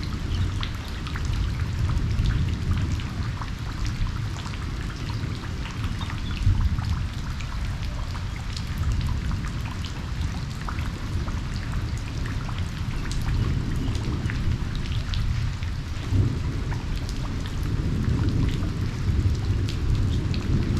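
Steady rain pouring down, with many individual drops ticking and pattering on surfaces over a continuous low rumble.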